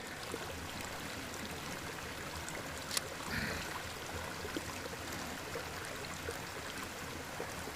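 A small beck running steadily over rocks, with a single sharp click about three seconds in.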